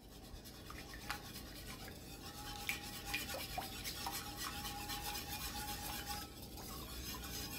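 Stainless wire whisk stirring barbecue sauce in an enamelled pot: a steady, rapid scratching and swishing, with light ticks of the wires against the pot.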